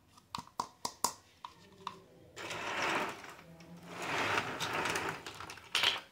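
Small hard-plastic toy teapot being handled: a quick run of about six light plastic clicks and taps, then two stretches of plastic scraping and rubbing, and a final clack near the end.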